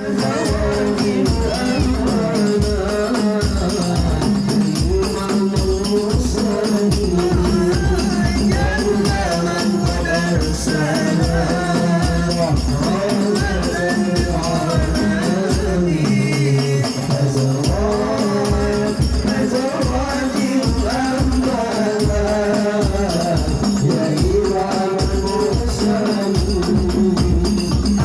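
Hadroh ensemble: hand-beaten frame drums keep a steady, quick rhythm under ornamented sung Islamic devotional vocals.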